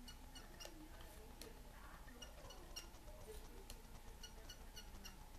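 Faint, scattered crackling ticks as a soldering gun tins a metal part in rosin, over a low steady hum, with faint short high chirps in small clusters.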